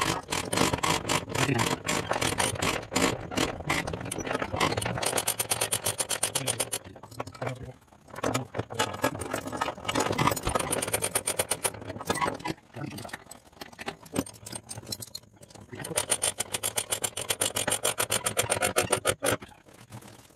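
Ratchet load binder being cranked on a trailer tie-down chain: fast, even clicking from the ratchet, with chain links clinking and rattling against the steel deck. The clicking stops for short pauses a few times.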